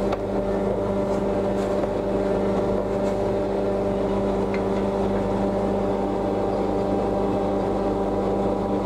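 A steady mechanical hum, as from a motor or machine running continuously, with a few faint light taps over it.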